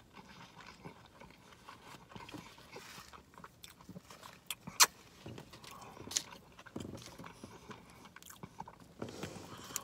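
Quiet, close-up chewing and mouth sounds of a person eating a roast beef sandwich, broken by a few sharp clicks, the loudest a little before the midpoint.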